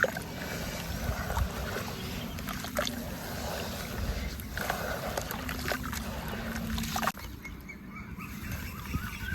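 Small chunks of dried white sand-cement mix crumbling in water, a dense run of fine crackles and small clicks. About seven seconds in, the sound turns abruptly duller.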